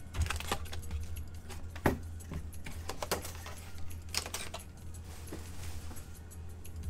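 Trading cards and packs being handled: cards sliding and clicking against each other, with irregular light clicks and rustles. A steady low hum runs underneath.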